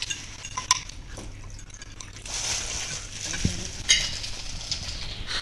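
A cat chewing raw water spinach stalks: irregular crackling with a few sharp clicks, denser in the second half.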